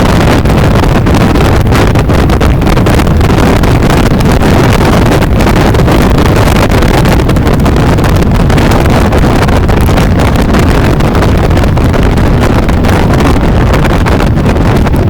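Loud, steady wind noise buffeting the microphone of a moving bike, with rapid flutter and no clear engine tone.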